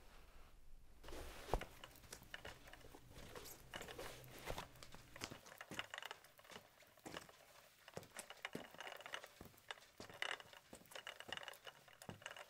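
Faint, scattered rustling, crinkling and scuffing of a person getting off a bed and moving across a floor strewn with paper, over a low hum that stops about halfway.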